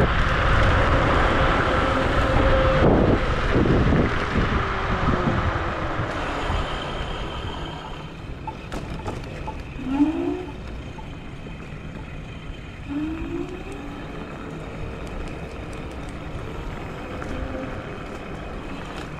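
Wind rush and tyre rumble from the Wolf Warrior dual-motor electric scooter riding at speed, with a steady motor whine that falls in pitch as the scooter slows over the first six seconds. After that it is quieter, with two short rising whines about three seconds apart as the motors briefly pull again.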